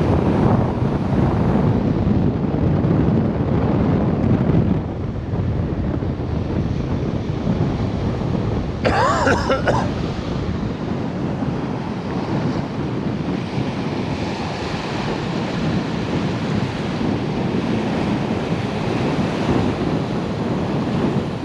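Wind buffeting the microphone over steady breaking surf. Near the middle comes one brief higher-pitched sound that glides in pitch.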